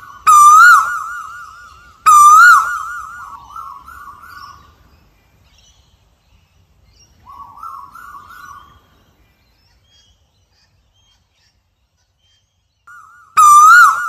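Asian koel calling: two loud, wavering calls in quick succession, each trailing off with an echo. A softer call follows a few seconds later, then a pause, and the loud calls start again near the end.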